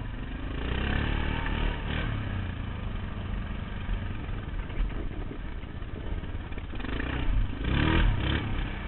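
Quad (ATV) engine running under way, revving up with a rising pitch about a second in and again near the end.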